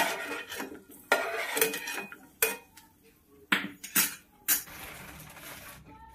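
Metal spoon scraping and knocking against a non-stick frying pan as roasted peanuts are scooped out of hot oil: a string of sharp clinks and short scrapes, with two longer rasping scrapes, one about a second in and one near the end.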